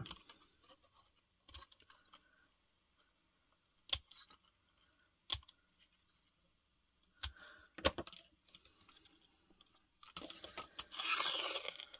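Scattered light clicks and snips of small craft scissors trimming paper straws, mixed with handling of a small kraft-cardboard box, with a couple of sharper taps about four and five seconds in. Near the end, a denser rustling of paper and cardboard being handled.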